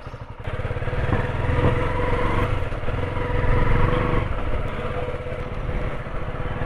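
A motorcycle engine running steadily, with a fast even low pulsing and a faint steady whine.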